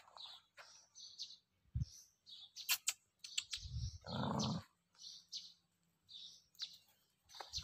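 Small birds chirping, short high chirps about twice a second, with a brief louder low noise about four seconds in.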